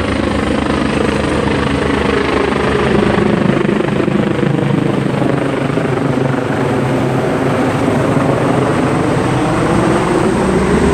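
Helicopter rotor beating loudly and steadily as the helicopter comes down to the water, taking up water to fight a fire.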